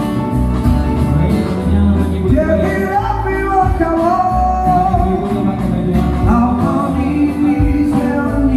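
Music: a song with a singer over guitar and heavy, steady bass.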